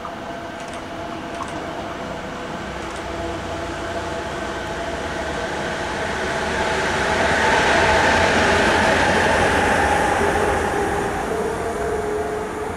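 A red DB electric locomotive passing through the station on the far track. The rumble of its wheels on the rails grows louder, peaks about eight seconds in, then fades, with steady whining tones over it.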